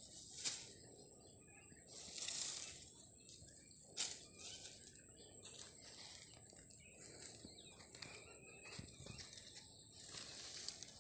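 Faint rustling and brushing of dry date palm fronds being laid over a soil seedbed, coming in short spells, with one sharp click about four seconds in. A steady high whine runs underneath.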